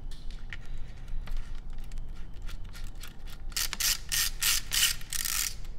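Canon Dial 35's clockwork spring-motor winding grip being turned by hand against its ratchet. Light clicks at first, then a run of about six short ratcheting bursts in the last two seconds, the last one longest.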